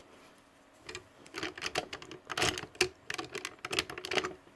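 Quick, irregular plastic clicks and knocks, like hard toy parts being handled and fitted together. They come in a dense run from about a second in until shortly before the end.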